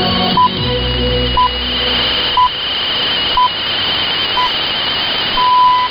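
BBC Greenwich Time Signal marking the top of the hour: five short pips one second apart, then a longer sixth pip. It is heard through a shortwave AM receiver over steady static hiss and a constant high whistle of interference.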